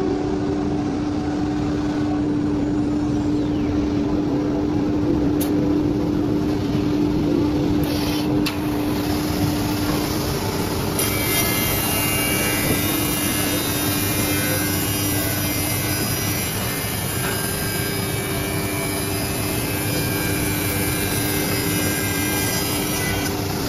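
HT-1325RS CNC wood router running and cutting wood: a steady pitched whine from the spindle over a continuous rushing cutting noise, which turns hissier about eleven seconds in.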